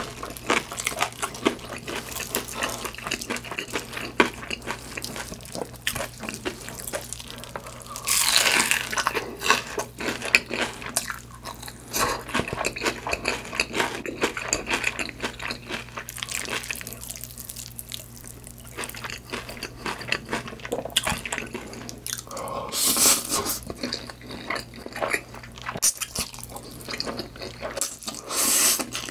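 Close-miked mouth sounds of eating saucy cheese mi goreng noodles: steady wet, sticky chewing with many small clicks. Longer slurps come about eight seconds in, around twenty-three seconds and near the end.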